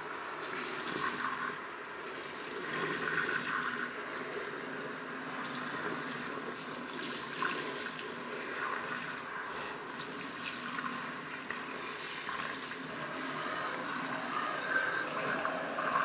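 Kitchen tap running steadily into a stainless steel sink while a soapy sponge is squeezed and rinsed under the stream, suds washing down the drain.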